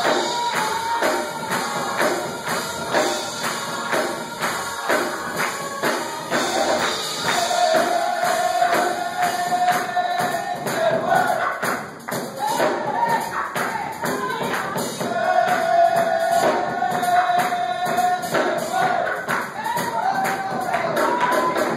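Youth gospel choir singing, with hand clapping keeping a steady beat.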